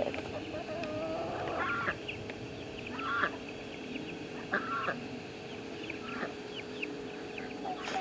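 Ducks and chickens calling: a handful of short calls spaced a second or so apart, with a longer, lower call about half a second in, over a faint steady hum.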